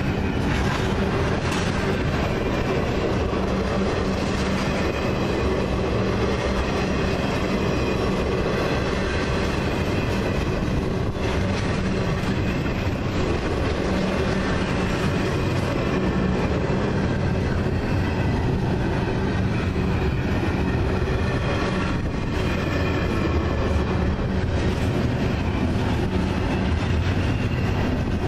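Double-stack intermodal well cars rolling past: a steady rumble of steel wheels on rail, with a few clicks over the rail joints.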